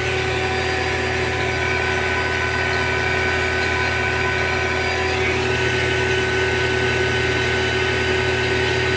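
Fieldpiece vacuum pump running steadily with a constant hum, evacuating a refrigeration system through a half-inch hose on the compressor's low-side port; the micron gauge on the line stands near 2000 microns as the vacuum is pulled down.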